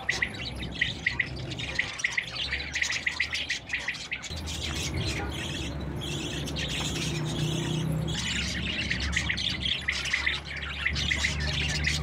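A flock of budgerigars chattering, many short chirps and squawks overlapping without pause, with a steady low hum underneath from about four seconds in.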